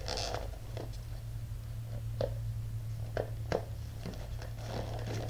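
Small cardboard chip box being turned over and picked at with the fingers to open it: a few sharp clicks and crinkles, over a steady low hum.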